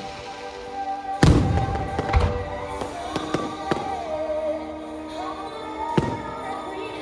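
Aerial firework shells bursting: a deep boom about a second in, several sharper bangs over the next few seconds and another crack near the end, with music playing throughout.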